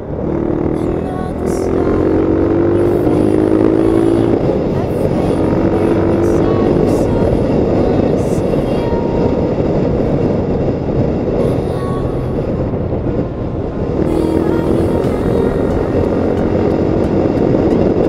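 Honda Tiger motorcycle's single-cylinder four-stroke engine running under way, rising in pitch several times as it accelerates, with wind rushing over the microphone.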